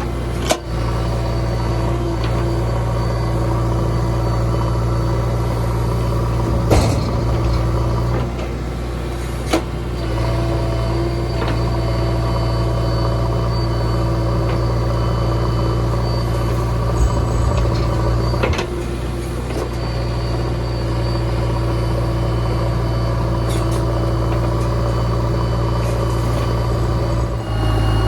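Diesel engine of a JCB 3DX backhoe loader running steadily while digging and loading, with a few sharp knocks.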